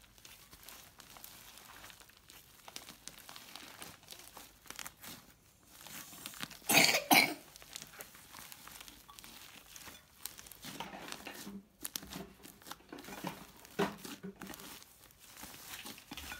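Bead-studded slime being kneaded and squeezed by hand in a glass bowl, making soft sticky crackles and squelches. One short, loud double burst comes near the middle.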